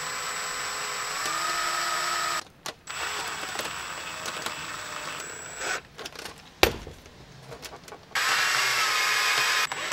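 Electric drill boring through a metal plate, its motor whining in three runs with short stops between, the pitch stepping up about a second in. A single sharp click falls between the second and third runs.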